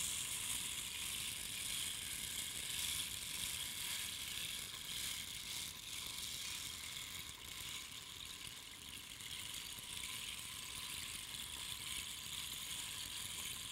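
Bamboo rain stick, its beans trickling through the pierced dividing sections as it is levered back and forth, kept going without a break: a continuous, even rustling hiss.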